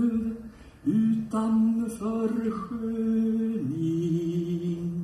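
A man singing a show tune in Swedish, holding long notes, with a brief break about half a second in.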